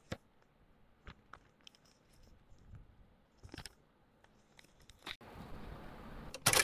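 Light rustles and small taps of a foam sheet and a paper card being handled and laid together. Near the end a much louder harsh noise starts.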